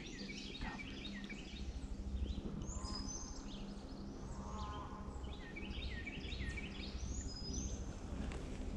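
Songbirds singing: two spells of quick, repeated chirping phrases over a steady low rumble.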